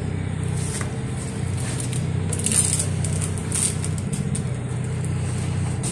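A steady low mechanical hum, with short hissing bursts about two and a half and three and a half seconds in.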